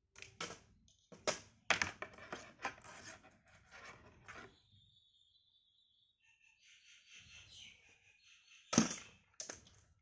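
Shimano XTR M970 shifter and its steel inner cable being handled as the cable is drawn out of its housing: a run of clicks and rattles, a thin scraping hiss from about halfway in, and one sharp knock near the end.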